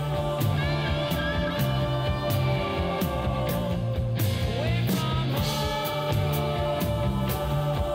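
Background rock music with a steady drum beat and a stepping bass line.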